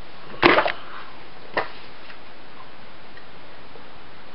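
Books being handled as they come off a person's head: a quick cluster of knocks about half a second in, then one more knock about a second later, over steady background hiss.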